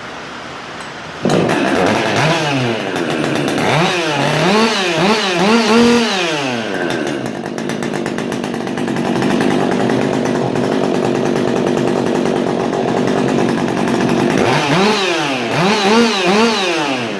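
Husqvarna 562 XP two-stroke chainsaw, built as a test saw, starting up about a second in and revved up and down in a run of quick throttle blips. It then runs steadily for several seconds and is blipped three more times near the end.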